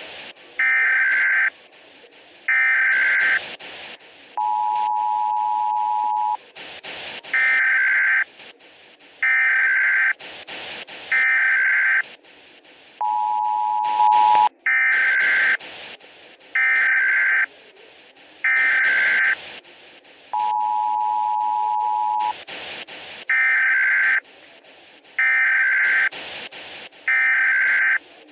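Emergency Alert System tones repeating: three short bursts of digital SAME header data, each about a second long, followed by about two seconds of the steady two-tone attention signal. The cycle repeats roughly every eight seconds, four times over.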